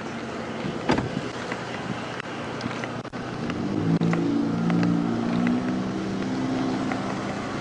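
A vehicle engine running with a steady hum that grows stronger about halfway through, over road noise and scattered sharp clicks.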